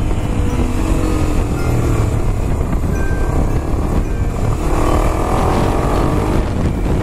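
Strong wind buffeting the action camera's microphone on a moving motorcycle, with the Kawasaki Ninja 250SL's single-cylinder engine running underneath as the bike is ridden through bends. The engine note shows more plainly about five seconds in.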